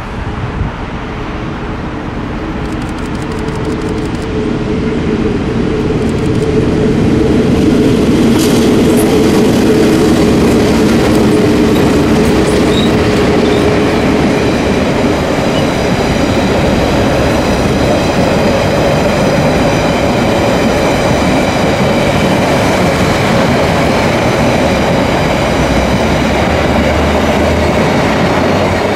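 Diesel-hauled TranzAlpine passenger train passing: the locomotive's engine grows louder as it approaches and goes by, then the panoramic carriages roll past with steady wheel-on-rail noise and a high whine.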